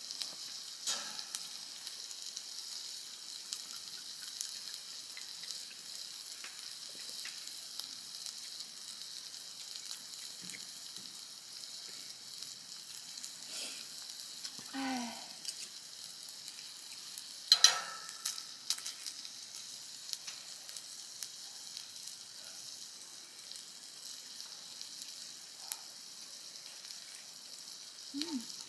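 Slices of beef sizzling steadily on a grill plate set on top of a Paseco kerosene heater, with a few small clicks. A brief sharp sound stands out about two-thirds of the way through.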